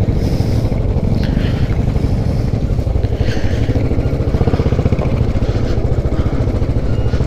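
Royal Enfield Bullet's single-cylinder engine running steadily at low speed under the rider, with a fast, even pulsing, while crossing a rough gravel track.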